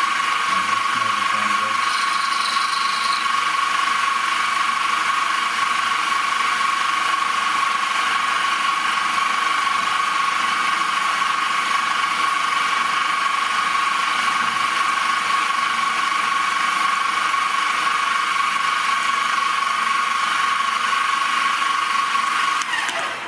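Metal milling machine running with a steady, high gear whine, shutting off near the end.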